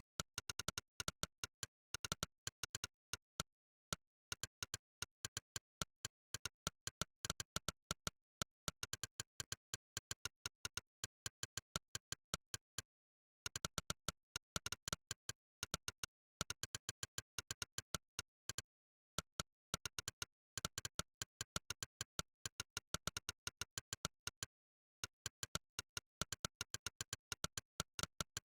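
Monkeytype's 'click' keystroke sound effect: a short, sharp synthetic click for each key typed, coming in fast, uneven runs of several clicks a second with a few brief pauses, and clean silence between clicks.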